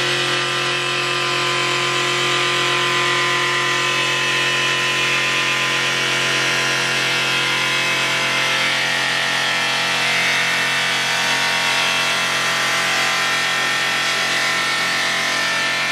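Abrasive belt heads of an automatic welding-seam polishing machine grinding a stainless steel tank: a steady, unbroken grinding hiss over a motor hum.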